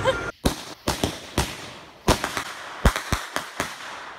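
Fireworks going off in the air: about a dozen sharp bangs and crackles at uneven intervals, the loudest a little before the end.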